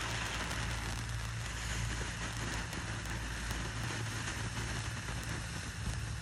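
Ground fountain firework spraying sparks with a steady hiss.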